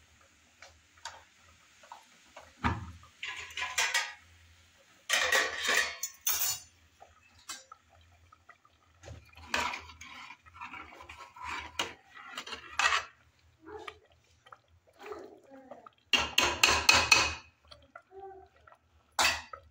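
Metal ladle scraping and knocking against an aluminium cooking pot as the food in it is stirred, in short bursts with pauses, the loudest about five seconds in and again near the end.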